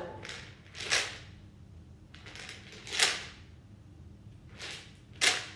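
Homemade shaker shaken slowly, one sharp rattling shake about every two seconds, with fainter rattles between them.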